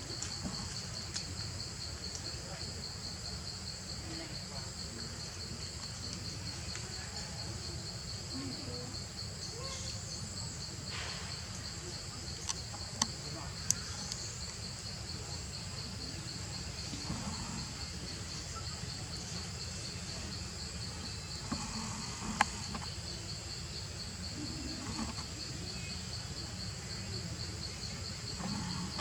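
Steady insect chorus: a fast, even pulsing trill that runs without a break, with a few sharp clicks partway through.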